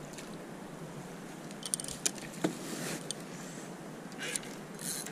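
A landing net being worked in the water beside a fishing kayak: a few sharp clicks and knocks around two seconds in, and short splashy bursts near the end, over a steady hiss of wind and water.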